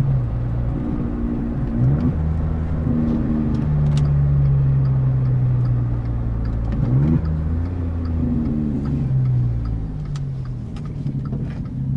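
Volkswagen Up TSI's 1.0 turbocharged three-cylinder engine running through a straight pipe with the muffler removed, heard from inside the car while cruising in a high gear at low revs. It is a steady engine drone whose pitch briefly rises and falls twice.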